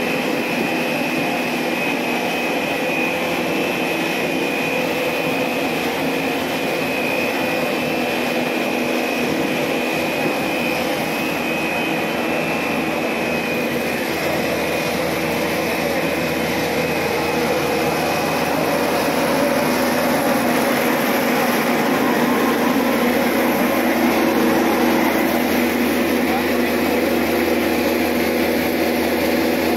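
Double-stage plastic recycling extruder plant running: a steady machine noise with a high whine and a lower hum held throughout, growing a little louder about twenty seconds in.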